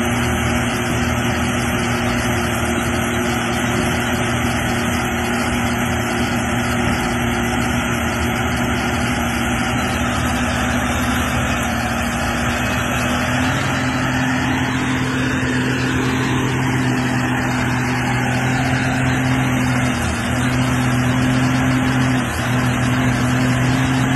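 Tracked excavator's diesel engine running steadily. About halfway through its pitch and level step up a little, and it dips briefly twice near the end.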